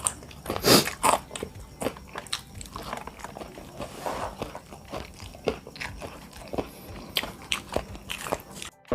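A person eating bakso close to the microphone: irregular bites, crunches and chewing, the loudest about a second in. The sound cuts off suddenly just before the end.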